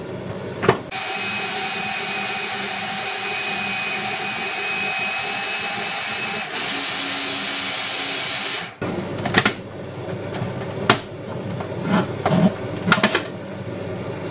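Decen food processor motor running steadily, a whir with a thin high whine, as it blends roasted courgette, seeds, garlic and olive oil into pesto. It cuts off suddenly about nine seconds in, followed by a few short knocks and clicks.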